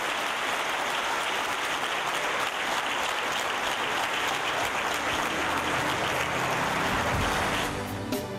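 A large congregation applauding, a dense steady clapping. About five seconds in, a low bass line comes in under it, and near the end the clapping dies away as music takes over.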